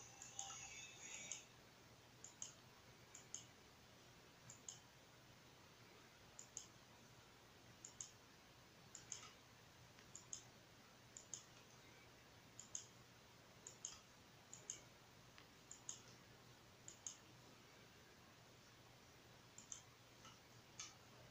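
Faint computer mouse button clicks, mostly in quick press-and-release pairs, about one every second with some longer gaps, over a low steady hum.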